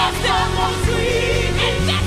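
Live gospel worship music: a band with bass and drums playing under singers, the voices holding and bending long notes.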